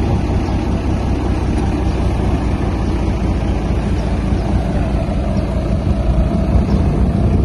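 Diesel engine of a truck-mounted crane running steadily at a constant low rumble while the hydraulic crane lowers a slung bundle of boards.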